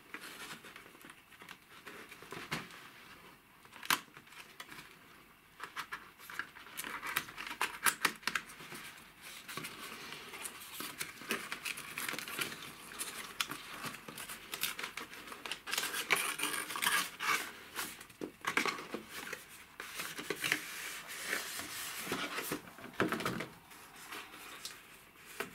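Cardboard box being opened and unpacked by hand: card sliding and scraping, paper rustling, with scattered sharp taps and clicks.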